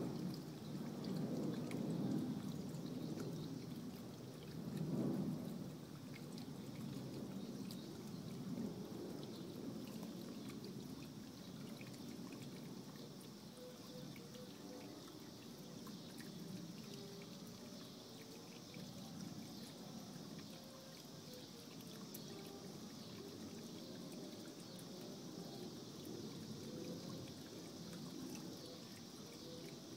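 Small stone garden fountain bubbling up and trickling steadily into its basin, somewhat louder over the first few seconds.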